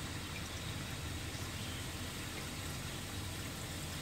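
Reef tank protein skimmer running in aeration mode with its collection cup off, frothing heavily: a steady hiss of water and bubbles over a low pump hum.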